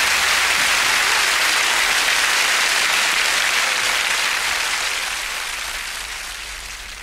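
Studio audience applauding, fading out over the last couple of seconds.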